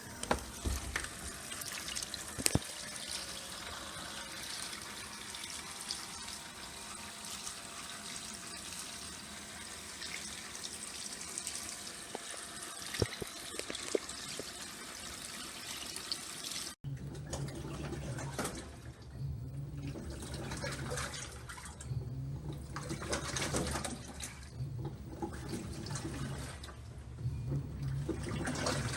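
LG 6.5 kg washing machine filling with water, a steady rushing hiss. After an abrupt break about 17 seconds in, a low motor hum comes and goes in pulses with water swishing, the drum starting to agitate the load.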